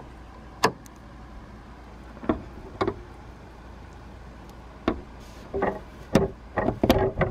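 Scattered clicks and knocks of a gas hood strut being fitted onto the ball-stud bracket under a Jeep Wrangler's hood: a sharp click about half a second in, a few more spread through the middle, and a quick run of clicks near the end.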